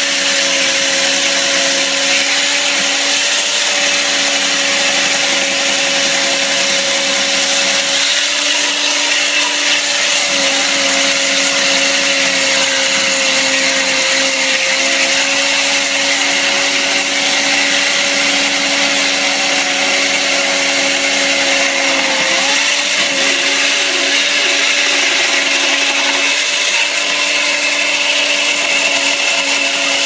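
Hydraulic diamond chainsaw, its chain water-cooled, cutting into concrete: a steady, loud grinding with a high, even whine from the saw. The pitch sags briefly about two-thirds of the way through as the load changes, then recovers.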